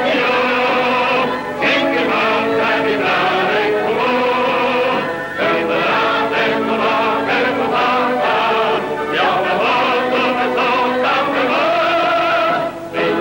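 Film score music with a choir singing long held chords, broken by a few short pauses between phrases.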